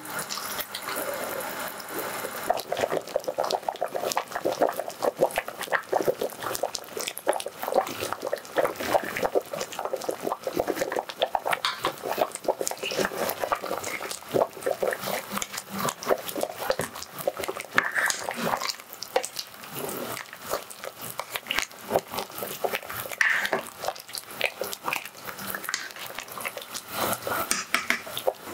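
Pot of beef-skin stew boiling with a dense run of small irregular pops, while a ladle stirs through it in the metal pot.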